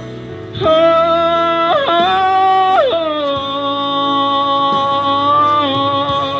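A singer holding long, wordless sung notes that slide between pitches, amplified through a microphone over instrumental accompaniment.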